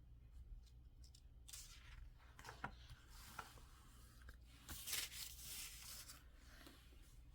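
Faint paper rustling and a few light clicks: the pages of a picture book being handled and turned.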